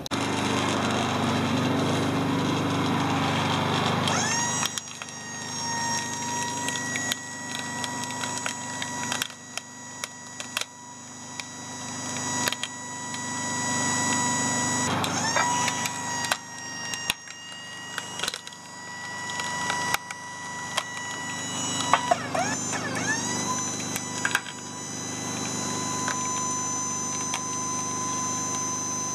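Electric hydraulic power pack of a homemade log splitter, spinning up to a steady whine three times, with sharp clicks and cracks in between. Vehicle-like rumble and noise come first.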